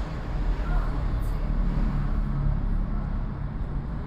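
Car driving through city streets: a steady low rumble of engine and road noise, with surrounding traffic.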